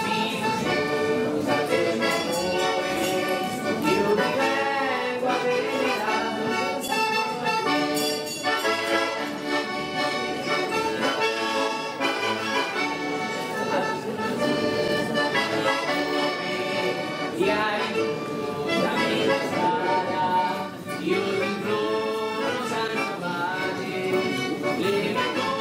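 Accordions playing a traditional folk tune, with no pause.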